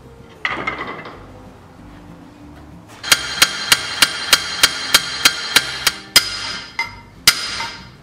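Hammer blows at a cast-iron roller-bearing Sarven wagon-wheel hub, fitting wooden spokes up into it. There is one knock about half a second in, then a quick even run of about ten light blows at about three a second, then two heavier ringing blows near the end.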